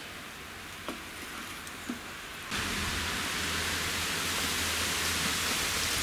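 A steel ladle taps twice against a steel cooking pot while stirring. About two and a half seconds in, a steady hiss comes in abruptly and stays even.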